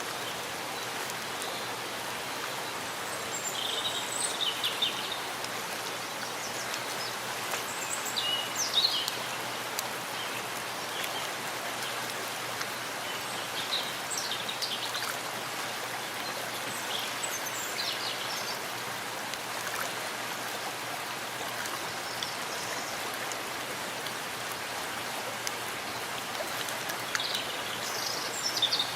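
Steady rain falling in a forest, an even hiss of drops on leaves and ground. A few brief high bird chirps come through now and then.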